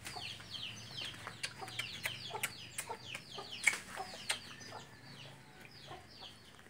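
Chickens peeping and clucking: a steady run of many short, high, falling peeps, with a few soft clicks among them.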